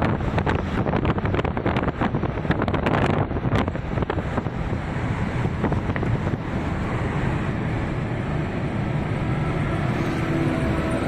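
Wind buffeting the microphone over the steady rush of a vehicle moving at highway speed. The buffeting is crackly and gusty for the first few seconds, then settles into an even rush of wind and road noise.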